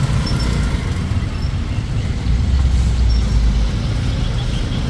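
Steady low outdoor rumble, swelling for about a second around the middle.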